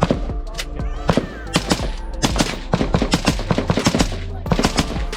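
Gunshots from firearms fired in quick succession, several rounds a second at times, overlapping as if from more than one shooter. Background music runs underneath.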